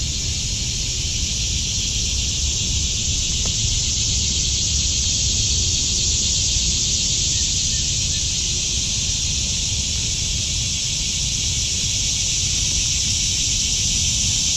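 A steady, unbroken high-pitched drone from a chorus of summer insects, over a low rumble.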